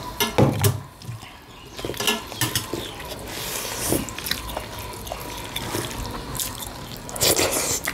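Close-up mukbang eating sounds: wet chewing, lip smacks and mouth clicks of two people eating rice and curry by hand, with fingers squishing and mixing rice on metal plates.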